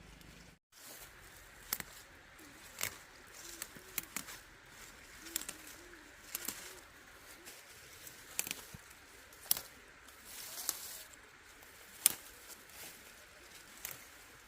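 Sharp, irregular snaps of plant stems being picked or cut by hand, about one or two a second. A dove coos faintly in the background.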